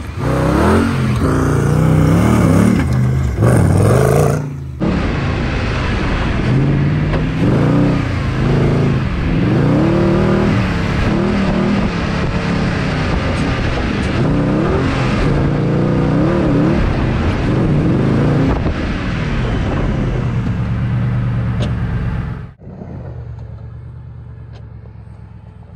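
Off-road buggy engine revving hard and unevenly, its pitch climbing and falling again and again as the buggy is driven flat out over rough ground on a timed run. Near the end the sound drops suddenly to a quieter, low, steady rumble.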